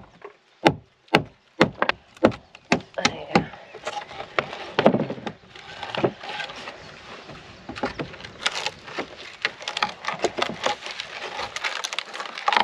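A quick run of hammer blows on a long metal bar driven in behind the wooden beam shelf of an old boat. From about four seconds in, the rotten wood is crackling and splintering as the shelf is levered away from the planking.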